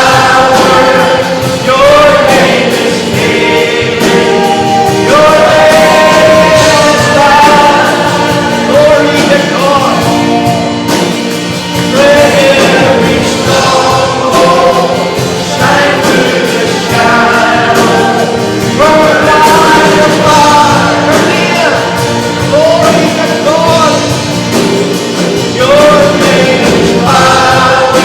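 A Christian worship song sung with band accompaniment: voices holding long, sliding notes over steady instruments.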